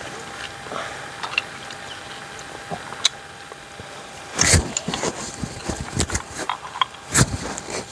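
Scattered clicks and knocks of grilled snail shells being handled as the meat is picked out of them, busier in the second half, with two heavier thumps about four and a half and seven seconds in.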